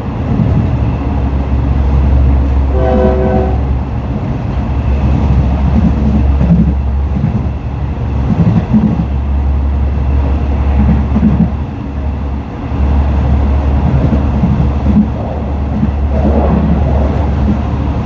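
Train running with a steady low rumble, and a short horn blast about three seconds in.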